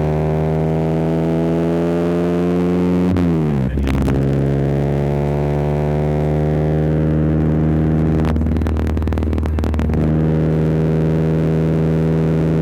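Honda Civic engine running steadily. Its pitch drops sharply about three seconds in, then holds at the lower pitch, with some clattering around eight to ten seconds.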